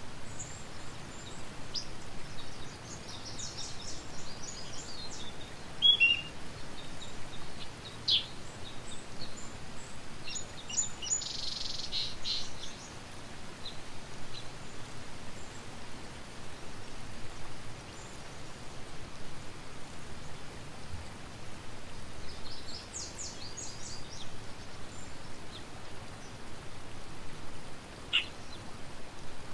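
Small birds chirping and trilling on and off in short high bursts over a steady outdoor background hiss.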